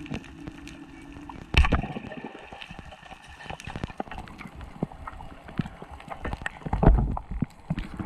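Underwater sound from a freediving spearfisher's camera: steady crackling clicks, with a heavy thump about a second and a half in and a louder one about seven seconds in, amid the knocks of fast movement.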